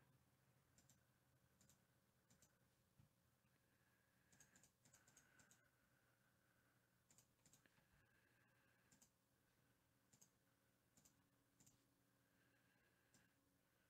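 Near silence broken by faint, irregular computer mouse and keyboard clicks, about a dozen, some in quick pairs or short runs, over a faint steady hum.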